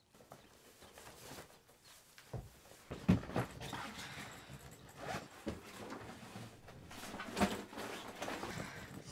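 Fabric rustling and objects being handled, with irregular soft knocks; the loudest knocks come about three seconds in and again about seven seconds in.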